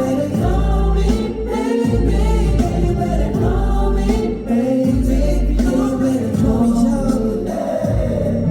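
Pop song with male voices singing over a heavy bass line, played loud through a concert sound system.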